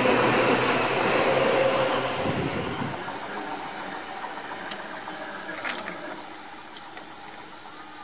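A yellow Seibu commuter train running past close by and pulling away: the rumble and wheel noise with a steady hum fade from about two seconds in. A brief high squeak comes near the middle.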